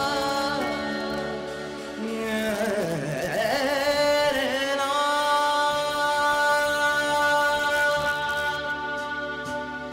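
Slow music with singing over a steady sustained drone; the melody wavers through ornaments in the middle, then settles onto long held notes.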